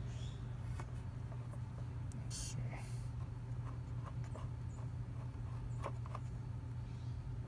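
Small scattered metal clicks and taps as a scooter mirror stem and its threaded adjuster are turned by hand in the windshield mount, with one brief scrape a little over two seconds in. A steady low hum runs underneath.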